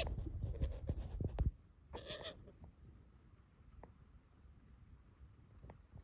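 Parakeet chicks in a nest cavity giving harsh, scratchy squawks, one at the start and another about two seconds in. A low rumble with a few knocks runs under the first second and a half, then stops.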